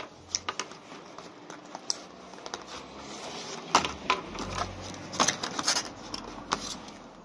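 Clear plastic blister packaging crackling and clicking as it is handled and a kinetic bullet-puller hammer is worked out of it, with a few sharper knocks, the loudest near four seconds in and again around five to six seconds in.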